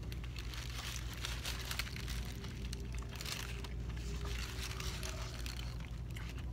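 Paper wrapping of a burrito crinkling and rustling as it is handled, over a steady low hum.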